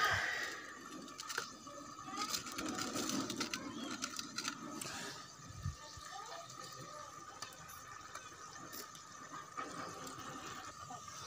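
Masala faintly sizzling and bubbling in a metal pot over a wood fire, with light clicks and handling sounds as boiled potatoes are crumbled in by hand.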